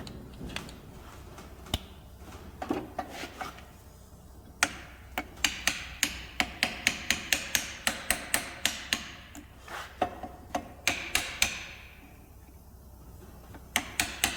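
Hammer tapping on a steel car door hinge: a few scattered taps, then a quick even run of about four light ringing taps a second, then a few more, to seat the hinge parts in place.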